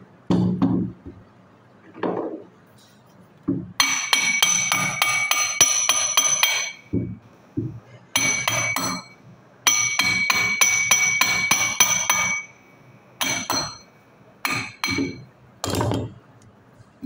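Hammer tapping on the metal front end of a car AC compressor, three runs of quick, ringing metal taps, several a second, followed by a few single taps near the end.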